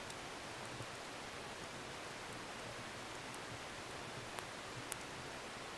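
Wood fire burning: a soft, steady hiss with scattered sharp crackling pops, the loudest about five seconds in.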